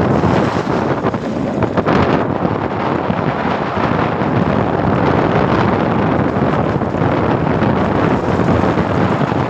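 Heavy rain mixed with hail falling steadily, a dense hiss, with wind rumbling on the microphone.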